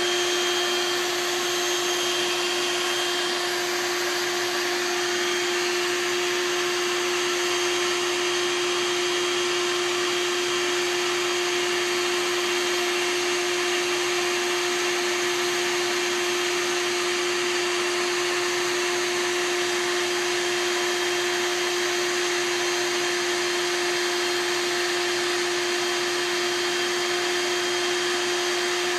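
Bee vacuum running steadily as it sucks a swarm of honey bees off a tree branch: a constant motor hum under a rushing hiss of air.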